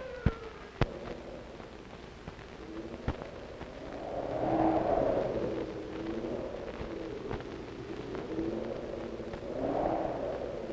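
Whooshing, rumbling sound-effect swells that rise and fall in waves, with faint low tones beneath. Two sharp clicks come in the first second.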